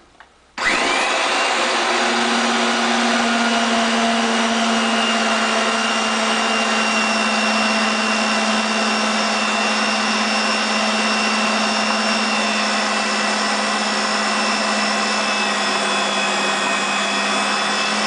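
RIDGID 1233 pipe threading machine switched on about half a second in. It then runs steadily with a hum and a high whine, turning a 3-inch pipe while its wheel cutter is fed in to cut the pipe.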